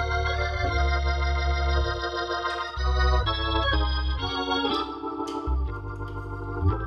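Organ music: sustained chords over deep bass notes, the harmony changing every second or two.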